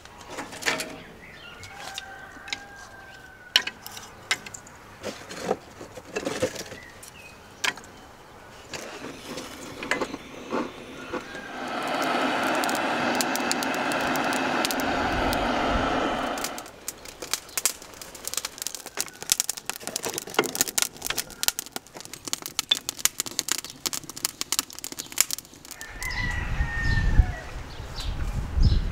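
A rooster crows twice, once near the start and once near the end, over scattered clicks and knocks of dry split kindling being handled. A steady rushing noise runs for about four seconds in the middle.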